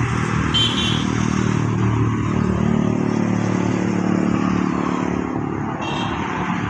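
Swaraj 855 tractor's three-cylinder diesel engine running steadily at low revs close by. Two brief high-pitched chirps come through, about half a second in and near the end.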